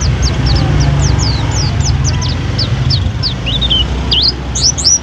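White-eye (pleci) singing a rapid, varied song of short, high whistled notes, mostly falling, about three to four a second, with lower twittering phrases and rising notes toward the end. A steady low rumble runs underneath.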